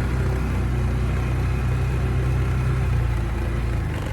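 Utility vehicle (gator) engine running steadily while driving, easing off slightly near the end.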